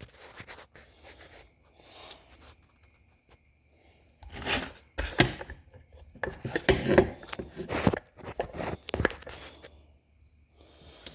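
Handling noises: a run of sharp clicks and taps with rubbing between them, mostly from about four to nine seconds in, after a quiet start.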